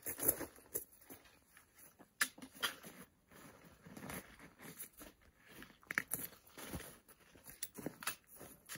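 Hikers' footsteps crunching on a snowy trail, an uneven run of short crunches, roughly one or two a second.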